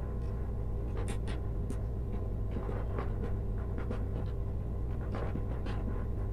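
Light rustling and scattered small clicks of hands handling insulated electrical wires at a plastic junction box, over a steady low hum.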